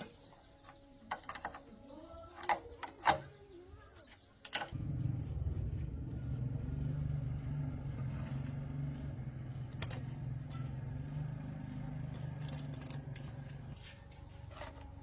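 Scattered metallic clicks and knocks, then about four and a half seconds in a diesel engine of heavy farm machinery starts abruptly and runs steadily with a low rumble.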